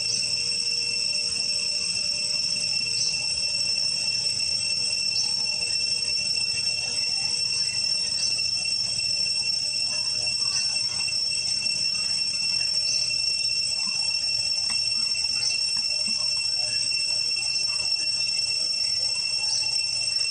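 Steady, high-pitched insect chorus, cicadas or crickets droning on several pitches at once without a break, with a faint tick every couple of seconds.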